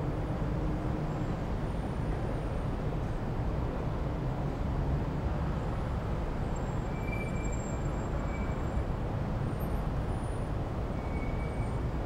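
City ambience heard from high above: a steady low rumble of distant traffic, with a few faint, brief high-pitched squeals about halfway through and again near the end.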